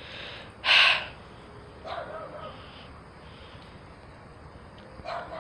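A dog barks once, loud and sharp, about a second in, followed by a couple of fainter, higher yips.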